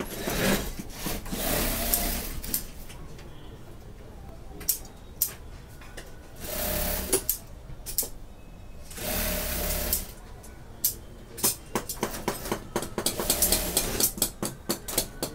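Industrial sewing machine running in short runs of about a second each, several times, with sharp clicks and knocks in between that come thick and fast near the end.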